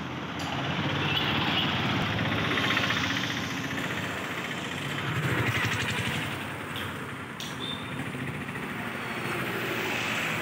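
Road traffic: engines and tyres of cars and auto-rickshaws going by, a steady rumble that swells twice as vehicles pass.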